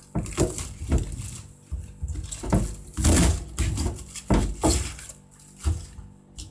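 Kitchen knife chopping bok choy on a plastic cutting board: a string of sharp cuts through the leaves and stalks, each striking the board, at an uneven pace of about one to two a second.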